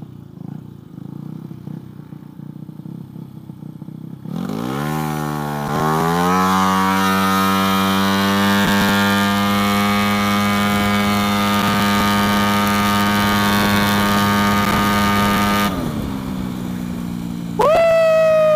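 Tuned drag-racing Vespa scooter engine run flat out: it runs low and uneven at first, then about four seconds in its pitch climbs quickly and holds at a high steady note for about ten seconds before dropping suddenly as the throttle closes. Near the end a separate pitched tone, louder than the engine, sounds for about a second.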